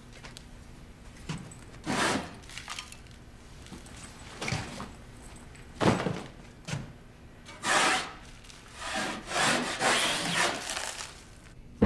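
Hand tools working wood: saw and rubbing strokes on boards, coming in separate strokes, closer together in the last few seconds.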